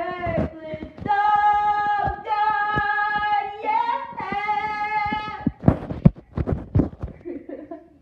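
A high voice singing long held notes with no words, three sustained notes with one step in pitch between them. Several sharp knocks or clicks follow near the end.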